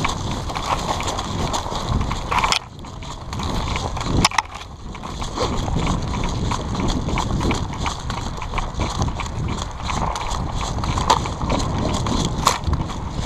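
An airsoft player running over rough ground: rapid footsteps with gear jostling and thumping, and a few sharp clicks about two and a half, four and twelve and a half seconds in.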